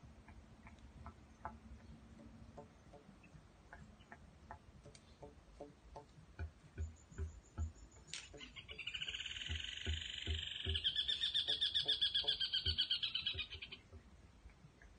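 An animal call: a loud, rapid pulsed trill lasting about five seconds, starting a little past halfway. Faint scattered clicks and a few low thumps come before it.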